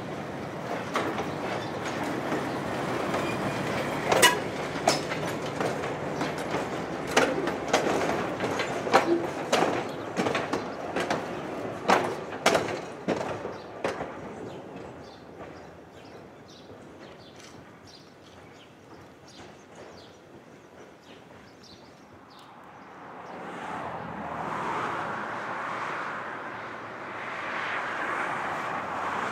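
Vintage Brill 75-type railcar running past close by, its wheels clacking over rail joints and the level crossing in a dense run of sharp clicks. The clacking fades out after about fourteen seconds. A steady rushing noise rises near the end.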